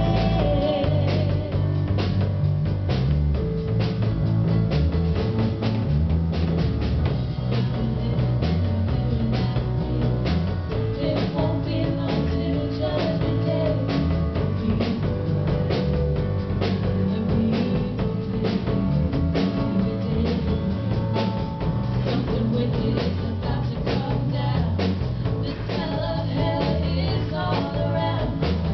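Live band playing a gospel worship song: bass guitar, drum kit and piano, with a woman's voice singing at times.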